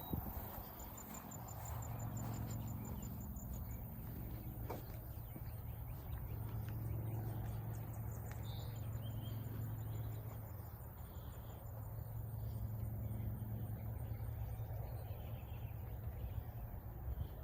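An insect trills in rapid, evenly spaced high pulses that stop and start again, over a steady low rumble, with a single click about five seconds in.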